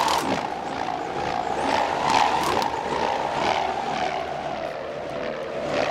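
Wind wand, a bow-shaped wooden frame strung with two rubber bands, swung around in circles so the bands vibrate in a steady, windy buzzing drone that slowly wavers in pitch, with a whoosh about twice a second as it turns. A slappy vibration runs through it, which the player puts down to bands that need tightening.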